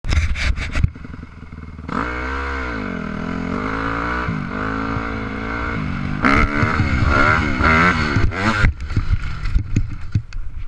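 Honda CRF250R dirt bike's single-cylinder four-stroke engine revving up and down as the rider throttles into a wheelie, climbing highest before it cuts off suddenly about three-quarters of the way through. Scattered knocks and clatter follow as the bike goes over backwards.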